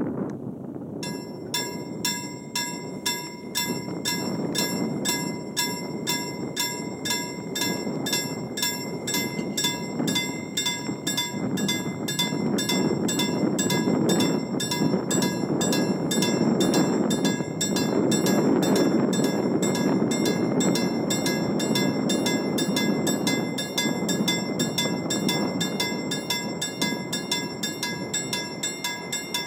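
Level crossing warning bell ringing in rapid, evenly repeated strikes, starting about a second in. Under it, the rumble of a regional train grows loudest in the middle as it runs over the crossing.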